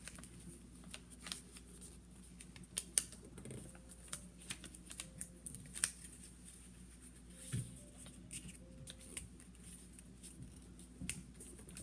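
A sheet of A4 paper being folded and creased by hand: faint, scattered crackles and taps, over a faint steady hum.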